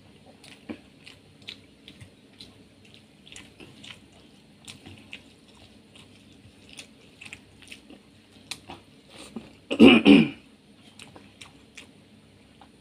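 Close-up eating sounds: wet mouth clicks and chewing, with fingers squishing rice mixed with masoor dal. About ten seconds in comes one short, loud vocal sound like a throat clear.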